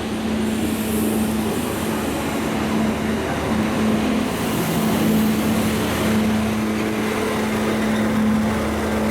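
Diesel locomotive engine running, a steady hum with a constant pitch that slowly grows a little louder.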